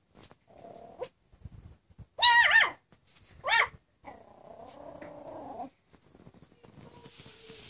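Yorkshire terrier puppy growling, with two loud, high yaps that waver in pitch about two and three and a half seconds in, then a longer growl.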